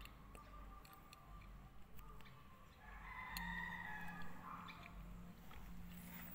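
A faint, drawn-out bird call about three seconds in, lasting close to two seconds, over a low steady hum and a few light clicks.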